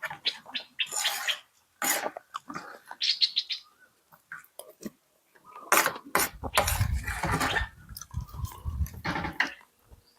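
Close-up eating sounds of beef noodle soup: slurping broth and noodles, chewing and wet mouth clicks in irregular bursts. In the second half, low thuds run under the slurping.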